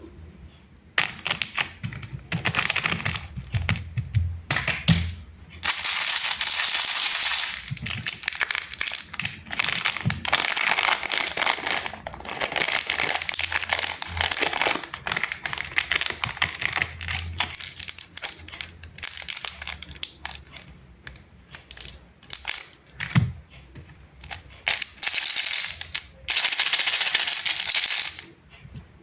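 Plastic candy packaging crinkling and rustling as it is handled and opened, in irregular bursts with a few longer continuous stretches and occasional soft thuds.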